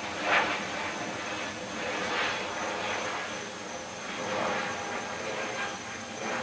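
Storm wind rushing in gusts that swell and fade about every two seconds, the strongest just after the start, over a faint steady high whine.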